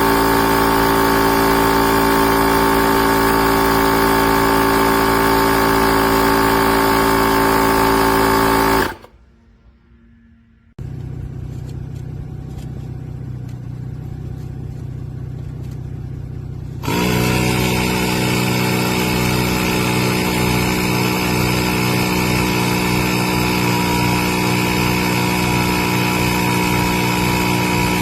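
Portable 12V piston tire inflator running steadily. About nine seconds in it cuts off, and after a brief near silence a quieter machine sound runs. The loud running then comes back with a fast low pulsing beat.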